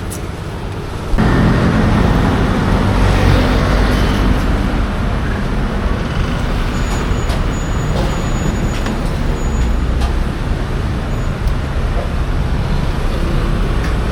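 Street traffic noise: motor vehicles running past with a steady low rumble, which steps up suddenly about a second in.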